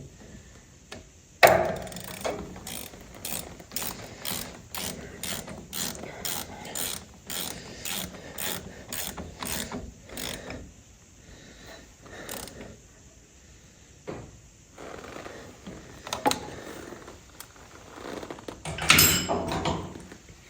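Hand ratchet wrench being worked, clicking steadily at about two to three clicks a second for several seconds after a sharp knock, then a few scattered knocks and a louder clatter near the end.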